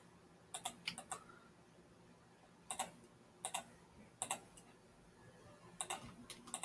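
Computer mouse buttons clicking: faint, short clicks at irregular intervals, several in quick pairs.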